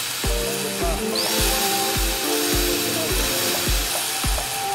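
Angle grinder switched on about a second in, its motor whining quickly up to speed and then running with a steady high hiss, as the repaired on/off switch is tested. Background music with a steady beat of about two kicks a second plays throughout.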